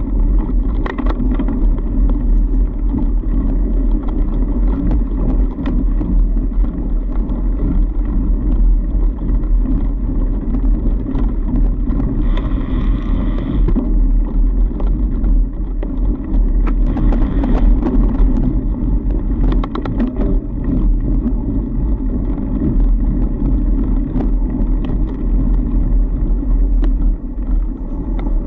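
Fat bike rolling along a packed snow trail: a loud, steady low rumble of tyre and wind noise on the camera microphone, with scattered clicks and rattles from the bike.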